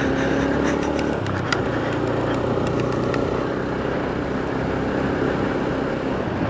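Motorcycle engine running while riding, mixed with steady wind rush on the microphone. The engine's pitched note is clearest for about the first second, then sinks into the wind noise, with scattered light ticks throughout.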